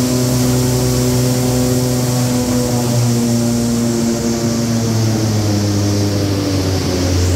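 Corrugator line with a fingerless single facer running: a loud, steady mechanical drone with a low hum that steps to a slightly different pitch a few times.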